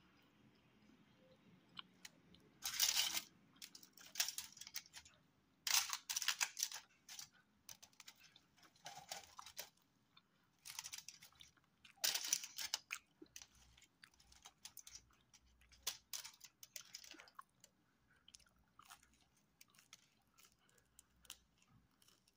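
A person chewing crisp pizza crust close to the microphone: irregular crunching bursts every second or two, loudest in the first half.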